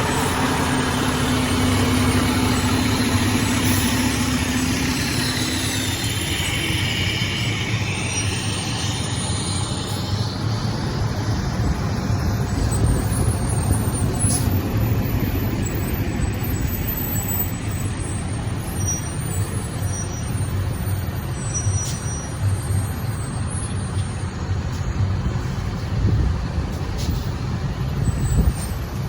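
Heavy truck engine running with a steady low rumble. A high whine falls in pitch over the first several seconds and fades out.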